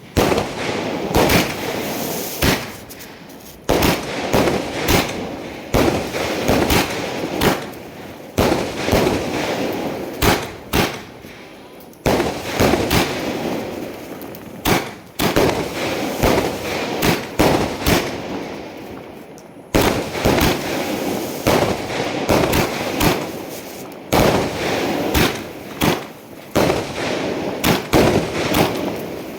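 Fireworks going off: a long run of sharp bangs at irregular intervals, often several a second.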